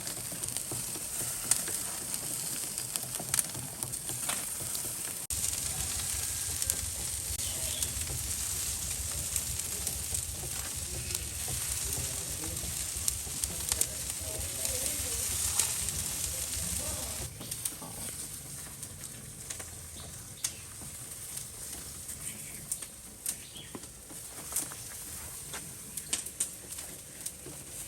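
Meat sizzling on a barbecue grill: a steady hiss with scattered sharp crackles. A low rumble joins from about five seconds in and drops away after about seventeen seconds.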